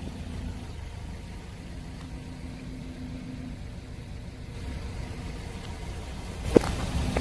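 Car engine idling with a steady low hum. Near the end the noise swells and a single sharp crack sounds.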